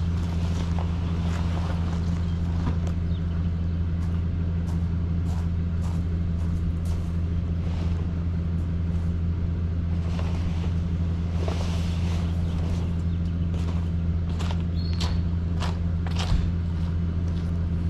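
A truck engine idling with a steady, even low hum. Faint rustles and scuffs come now and then from a plastic tarp being handled on the ground.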